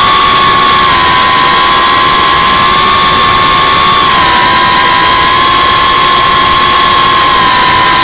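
Geprc Cinelog35 FPV drone's brushless motors and ducted propellers whining steadily at cruise, over a loud rush of air. The pitch dips slightly about four seconds in.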